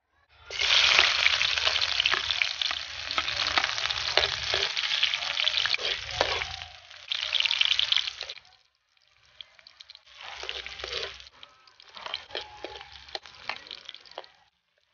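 Sliced onion and garlic sizzling in hot oil in a wok, stirred with a metal spatula that scrapes on the pan. A loud sizzle starts about half a second in and stops after about eight seconds; after a short gap the sizzling comes back softer and broken up by the stirring.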